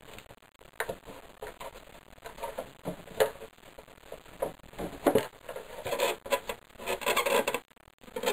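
Scattered knocks, clicks and rubbing as an engine valve cover is handled and set down onto the cylinder head, with a denser run of rubbing and clatter late on.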